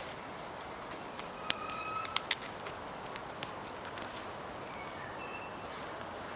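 Dry twigs cracking and snapping as kindling goes onto a newly lit campfire: a scatter of sharp cracks, thickest about two seconds in. A few short, high squeaks sound over it.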